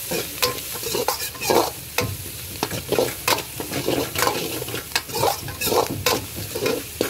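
Steel ladle scraping and knocking against a large metal kadai, stirring moong beans and chopped vegetables frying over a sizzle, in irregular strokes about two a second.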